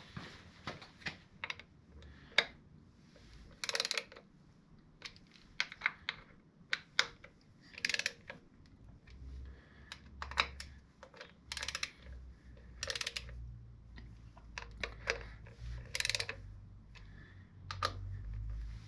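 A hand ratchet clicking in short irregular runs, with light metallic clicks, as the derby cover screws on a Harley-Davidson Milwaukee-Eight primary cover are run down snug in a crisscross pattern.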